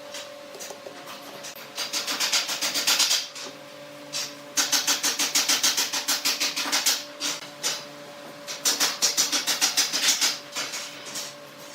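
A hand tool scraping wood in three bursts of quick, evenly repeated strokes, over a faint steady hum.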